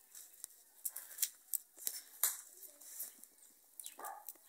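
Wood fire with maize cobs roasting in it, crackling with irregular sharp pops and clicks.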